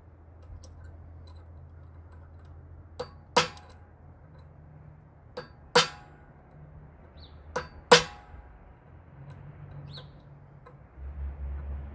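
Hammer striking a steel part three times, about two seconds apart. Each blow is a light tap followed a moment later by a hard strike that rings like metal.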